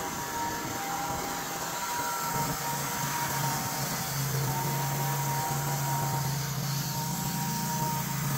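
Wood-Mizer LT35 portable band sawmill running steadily, sawing down a white oak cant.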